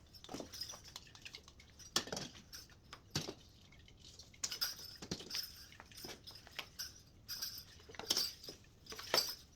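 Irregular light clicks, taps and clinks with faint rustling: small household objects being handled and set down, a dozen or so separate knocks spread unevenly.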